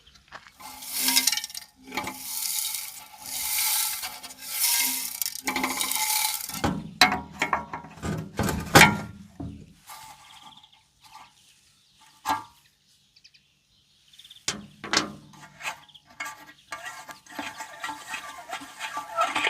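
Workshop handling noises: about five rhythmic rasping strokes, roughly one a second, then scattered clinks, knocks and a short rattle of hard parts.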